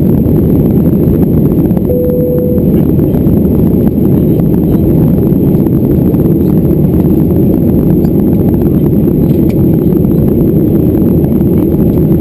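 Steady in-cabin noise of a Boeing 737-400 in flight: a loud low rumble of its CFM56 engines and the air rushing past the fuselage. A short steady tone sounds briefly about two seconds in.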